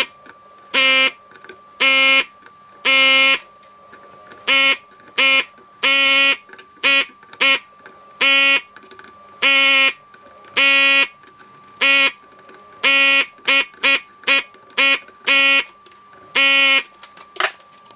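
Repeated short buzzing bursts, about twenty of them at irregular intervals, each a flat, steady buzz that starts and stops sharply, like a desoldering tool's vacuum pump being triggered over and over while relays are desoldered in sped-up footage. A faint steady high tone and a low hum run underneath.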